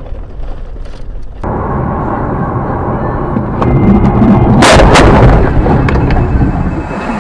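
Car collision picked up by a dashcam's in-car microphone. Loud, distorted noise starts suddenly, and a sharp crash of impact about four and a half seconds in is the loudest moment, with noise running on after it.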